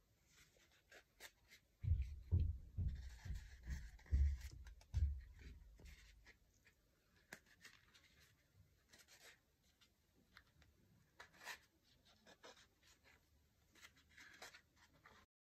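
Hands working glittery fabric around a sandal insole: rustling and crinkling with small clicks. Between about two and five seconds in comes a quick run of low, dull thumps.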